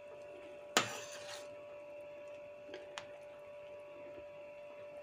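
A metal spoon knocks against a stainless-steel pot about a second in, followed by a short swish of stirring through simmering soup, then two light taps near three seconds. A steady faint hum runs underneath.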